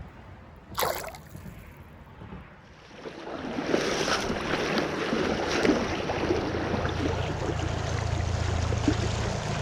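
River water splashing and gurgling close to the microphone, getting much louder about three seconds in, with a brief falling swish about a second in.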